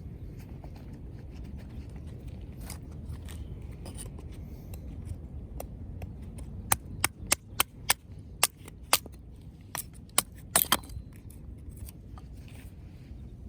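Wood fire crackling: a run of about a dozen sharp pops in the second half, over a low steady rumble.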